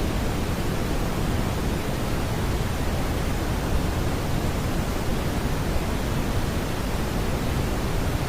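Steady smoothed brown noise: a constant, even rushing hiss weighted towards the low end, with no tones or events.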